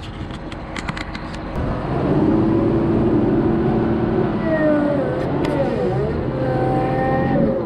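Loader engine under load, revving up about two seconds in as the bucket is pushed into a pile of chicken litter to fill it. From about halfway, a whine wavers up and down in pitch as the bucket works. There are scattered clicks and rattles in the first second and a half.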